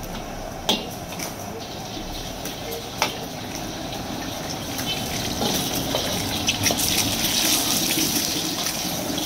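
Eggs cracked into a hot oiled wok over a roaring gas burner: two sharp taps of the shells, then oil sizzling, building from about halfway as the eggs fry.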